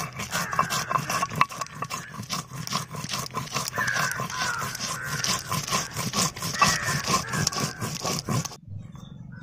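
Stone muller grinding wet spice paste on a flat sil-batta grinding stone: quick back-and-forth strokes of stone scraping over stone, which stop abruptly near the end.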